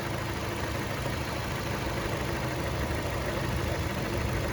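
Chevrolet Cruze 1.4-litre turbocharged four-cylinder engine idling steadily with its bottom end freshly rebuilt, running smoothly.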